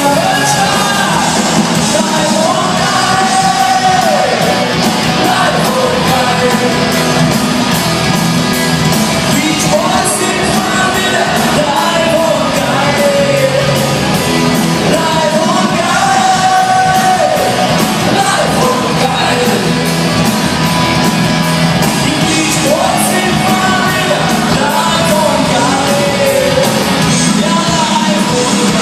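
Live band playing loud music with a steady beat, with singing and shouting over it, heard through the hall's echo.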